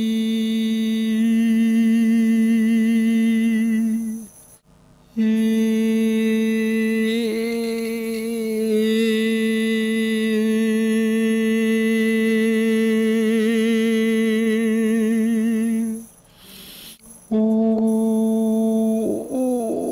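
A person's voice holding a steady, even tone in three long sustained notes, with short breaks about four seconds in and about sixteen seconds in; near the end the pitch wavers and slides.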